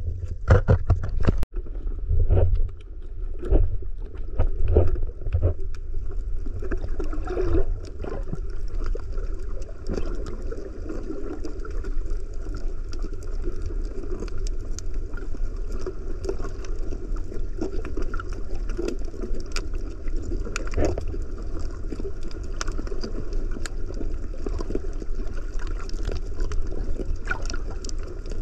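Muffled underwater sound picked up by a snorkeler's camera below the surface: a steady deep rumble and water noise. Irregular knocks and splashy thuds come in the first several seconds, then the sound settles to an even wash.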